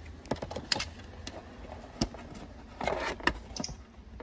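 Handling noise from a Big Mouth Billy Bass motor being fitted into its motor holder: a handful of sharp, separate clicks and taps with a short rustle about three seconds in.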